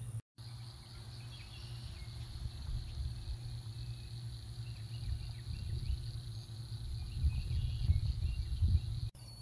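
Steady insect chirring in an outdoor garden, a constant high buzz, over a low rumble on the microphone that grows louder in bursts near the end.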